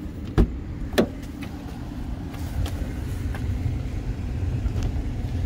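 A car seat being slid forward on its track: two sharp latch clicks about half a second apart, over a steady low rumble that grows slightly louder.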